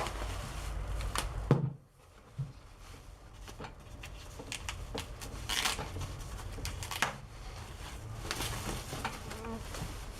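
Rustling and crinkling of plastic and foam packaging as a new electric guitar is unwrapped, with irregular handling knocks, one sharper knock about a second and a half in.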